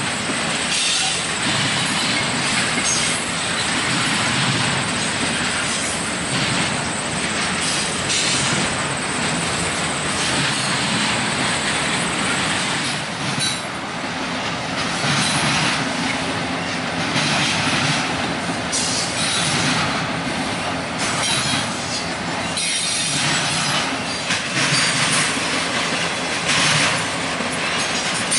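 Intermodal freight train rolling past, its double-stack container cars and trailer-carrying flatcars running on steel wheels: a steady rumble and rattle with irregular clacks from the wheels over the rail.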